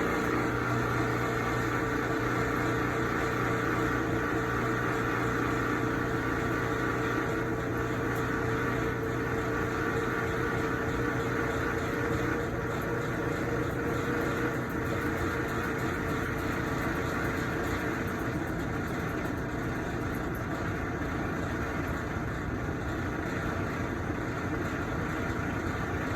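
Kenmore top-load agitator washing machine running with a steady mechanical grinding and a droning hum underneath. The grinding remains after the basket drive, clutch and agitator dogs were replaced, and the owner wonders whether the drain pump is the cause.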